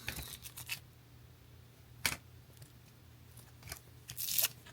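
Trading cards in plastic holders being handled: a few light clicks in the first second, a sharper click about two seconds in, and a brief scraping slide near the end.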